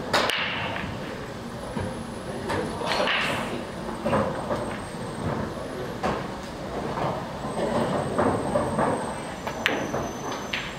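Pool hall room noise: a steady din of indistinct chatter, broken by several sharp clicks of billiard balls striking one another.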